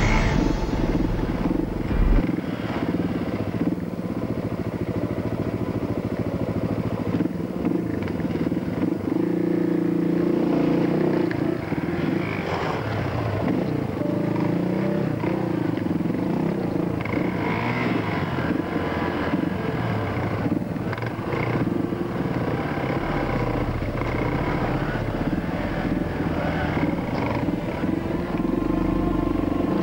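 Off-road motorcycle engine running as the bike is ridden over a rocky trail, its revs rising and falling.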